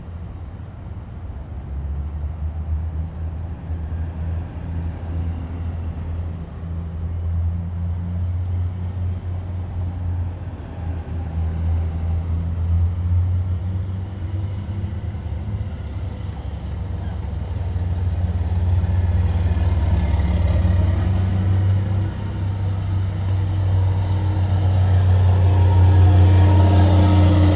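Heavy military vehicles' diesel engines running with a deep steady drone as a column passes, swelling louder toward the end as a vehicle draws close.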